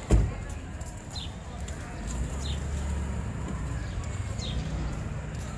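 Street ambience while walking: a sharp low thump at the very start, then a low steady rumble from about two seconds in, with short high chirps repeating every second or so.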